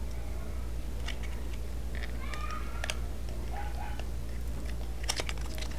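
Small lipstick packaging being opened by hand, with sharp clicks and handling noise, while short animal calls sound in the background about two seconds in and again a little later, over a steady low hum.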